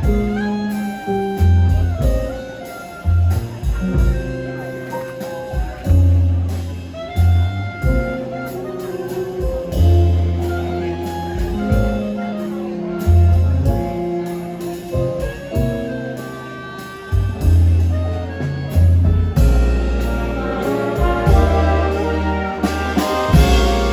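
Jazz orchestra playing, with brass and saxophones holding notes over a walking low bass line; the band grows fuller and brighter near the end.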